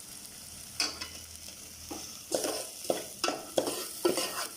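Masala paste frying in oil in a pan with a steady sizzle, stirred with a spoon scraping the pan: one stroke about a second in, then quick scrapes about three a second. The masala has already let out its oil, the sign that it is fully fried.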